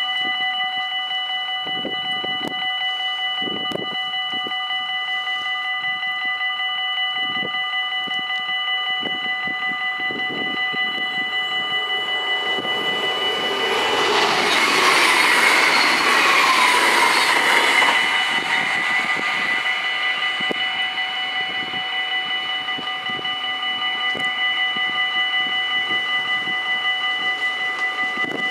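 Dutch level-crossing warning bells ringing steadily. About halfway through, a VIRM double-deck electric train rushes past loudly for about five seconds, then fades, while the bells keep ringing.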